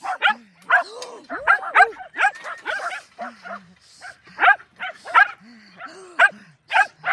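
Dog barking and yipping repeatedly in quick, high-pitched barks, about two or three a second.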